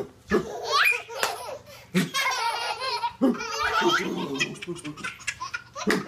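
Three babies laughing hard together in repeated fits of giggles and belly laughs, set off by a man's playful lunges at them.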